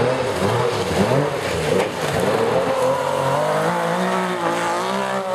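Porsche 911 rally car's air-cooled flat-six engine revving up and down through a bend, then holding a steadier, slowly rising note as it accelerates past.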